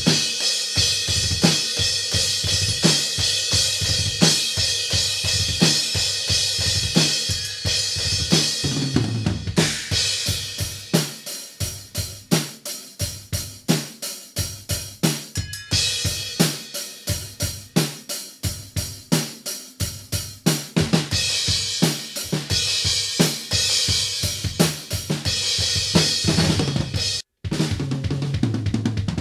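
Drum kit played fast: kick and snare under heavy cymbal wash for about the first nine seconds, then a stretch of rapid drum strokes with lighter cymbals, then crashing cymbals again. The sound cuts out for a split second near the end before the playing resumes.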